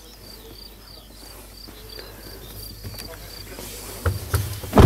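Faint high-pitched chirping in short, even pulses, about three a second. Near the end come a few low knocks and a loud thump.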